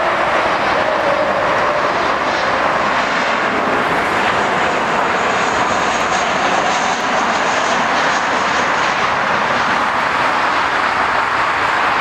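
Jet airliner's engines passing close by: a loud, steady rushing noise, with a faint high whine in the middle.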